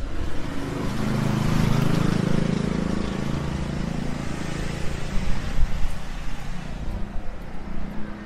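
City street traffic: a motor vehicle's engine passes along the road, its low hum swelling about a second in and fading over the next few seconds, over steady traffic noise.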